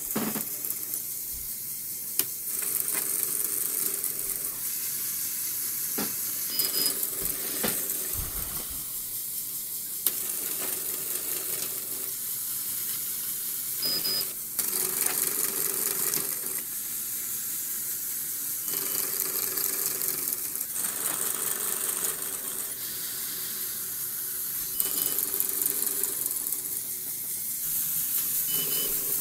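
An automated LEGO Mindstorms RCX loom running, its small electric motors (a Power Functions motor, an RCX motor and a printer motor) whirring through repeating stages that change every couple of seconds. Plastic gears clatter, with occasional sharp clicks and a few short high beeps.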